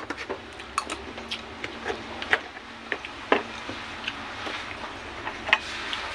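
Close-up sounds of eating by hand: irregular sharp clicks and smacks from mouth and fingers on food and plate, about two or three a second, over a low hiss.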